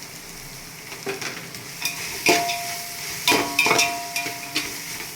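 Onions, ginger-garlic paste and green chillies frying in ghee with a steady sizzle while a spoon stirs them, clanking against the pan about six times, some clanks ringing briefly.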